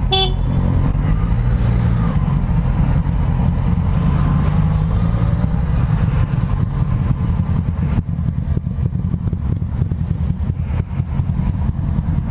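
Motorcycle engine running under way, its pitch rising a little in the first couple of seconds and then holding steady.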